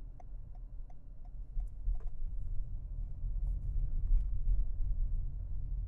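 Road and drivetrain rumble inside the cabin of a 2024 Toyota RAV4 driving along a city street. Faint, evenly spaced ticks come about three a second through the first two seconds or so.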